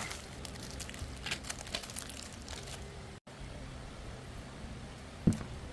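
Crinkling with quick small clicks, like things being handled, for about three seconds; then it breaks off abruptly into a steady low hiss, with one sharp thump near the end.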